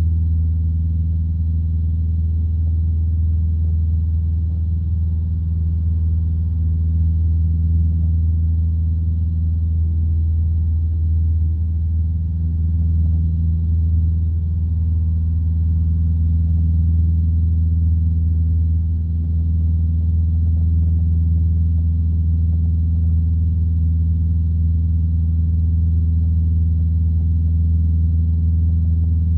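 Light aircraft's single piston engine and propeller droning steadily in flight, a loud, even low drone with no change in pitch.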